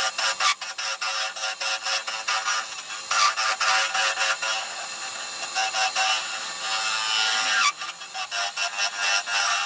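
Hollowing tool cutting inside a spinning horse chestnut blank on a wood lathe: a scratchy scraping with rapid, irregular clicks. It goes softer and steadier for about three seconds in the middle, then the clicking picks up again.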